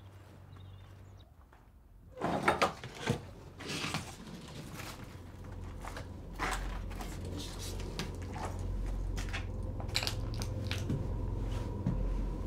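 Footsteps and handling noises of a person entering a derelict building, over a low steady hum. A burst of crunching knocks comes about two seconds in, followed by scattered knocks and clicks as he moves over the debris-strewn floor and onto the stairs. The hum comes in later and holds steady.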